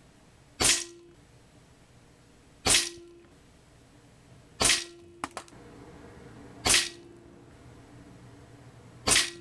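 Five shots from a Crosman Challenger .177 PCP air rifle, about two seconds apart, each a sharp crack followed by a brief low ring.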